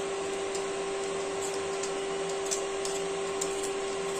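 Short, faint scraping strokes of a hand vegetable peeler taking the skin off a raw potato, over a louder steady hum that holds one tone.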